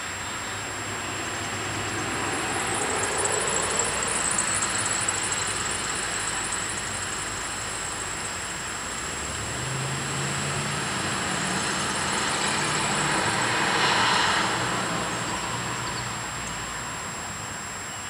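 Two cars driving past, one after the other, each swelling and fading away. The first passes a few seconds in; the second, with a low engine hum, builds from about ten seconds in and is loudest near the fourteenth second.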